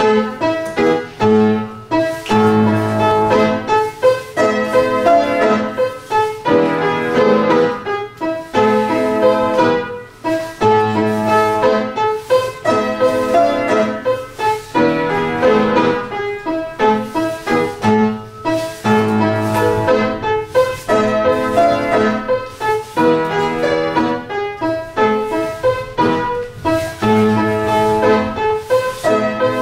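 Piano playing classical-style accompaniment for a ballet barre exercise, in even, regularly repeating phrases with a steady beat.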